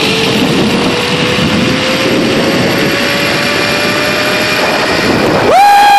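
Zipline trolley running fast along a steel cable with wind rushing over the phone's microphone; the pulley's whine rises slowly in pitch as the rider gathers speed. Near the end a rider whoops, a long held call that falls away.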